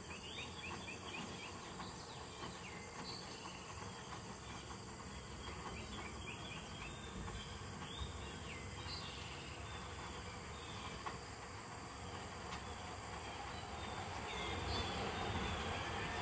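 Insects droning steadily, with a bird singing short phrases every few seconds; near the end a vehicle on the road grows louder as it approaches.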